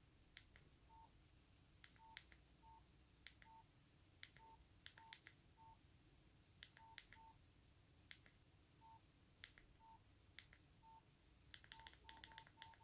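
Faint key presses on a Nokia 5300 XpressMusic: sharp clicks of the navigation keys and short keypad beeps, all at one pitch, at irregular intervals. The presses quicken into a fast run near the end as the menu is scrolled.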